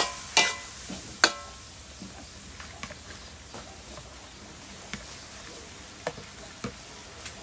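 A metal spatula clanks against a steel wok three times in the first second and a half, each clank ringing briefly. Then come scattered light ticks as corn kernels are poured into the wok, over a low steady frying sizzle.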